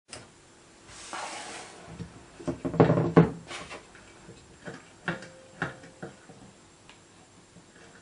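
Knocks and clicks from a small Märklin toy steam engine being handled on a wooden bench as its lever and flywheel are touched and moved. A brief rustle comes about a second in, then a cluster of louder knocks around three seconds in, followed by a few single sharp clicks.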